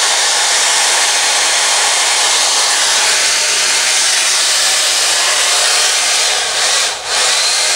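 Handheld hairdryer blowing steadily on high, used to heat and soften the glue of an LCD ribbon cable so it can be pressed back onto the board. The rush drops away briefly about seven seconds in, then comes back.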